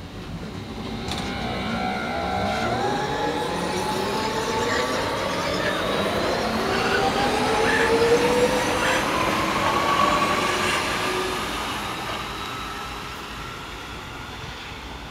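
Hamburg U-Bahn DT4 electric train accelerating away from the platform, its traction motors whining in several tones that rise steadily in pitch. The sound grows louder as the train passes, peaks past the halfway point, then fades as it pulls away.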